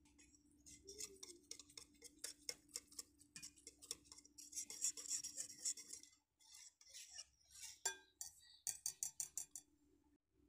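Wire balloon whisk beating a thin rice batter in a glass bowl: rapid clicking of the wires against the glass, with a short break about six seconds in.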